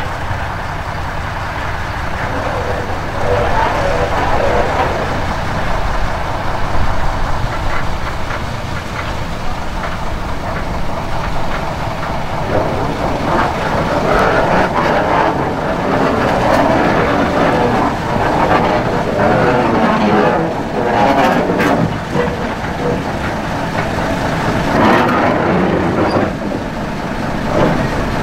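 Vulcan Foundry 0-4-0 diesel shunting locomotive running as it draws slowly closer along the track, its engine note mixed with wheels rolling over the rails.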